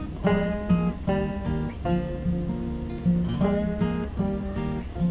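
Background instrumental music: a plucked-string tune over a steady bass line.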